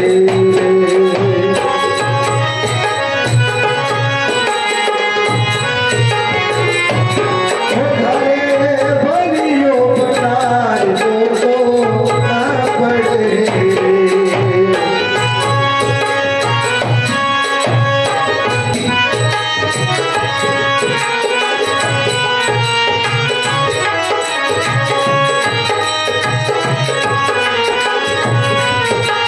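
Instrumental interlude of a Hindi devotional bhajan: a hand drum keeps a steady, regular beat under a wavering melody, with no singing.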